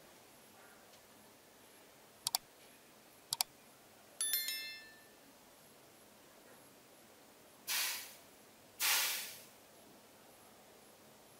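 Subscribe-button animation sound effects: two quick clicks about a second apart, a bright bell-like chime, then two whooshes about a second apart.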